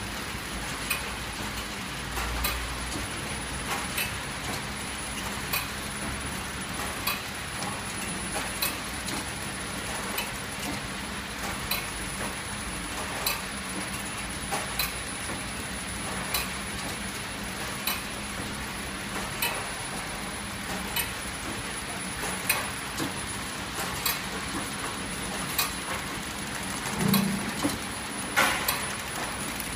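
Horizontal flow-wrap packing machine running as it wraps cookies in film: a steady hum with a light click repeating about every one and a half seconds as it cycles, and a few louder clinks near the end.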